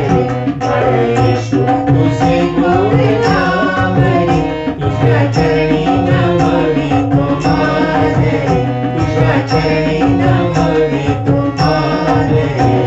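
Devotional music with a steady percussion beat under sustained melodic instruments.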